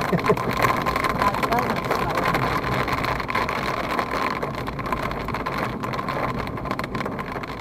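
Inside the Abarth's cabin while it drives: engine and tyres on a wet road, with many small drops ticking on the roof and windscreen, fading slowly toward the end.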